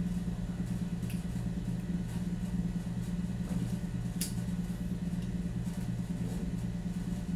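Steady low hum, with a few light clicks as a plastic phone clamp on a gooseneck stand arm is handled and adjusted; the sharpest click comes about four seconds in.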